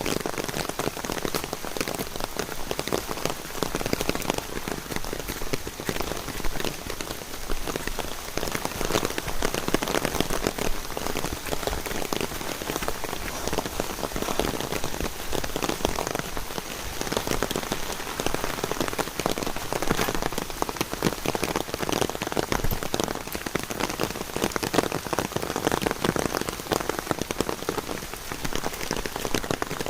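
Steady, heavy rain falling, thick with small individual drop hits.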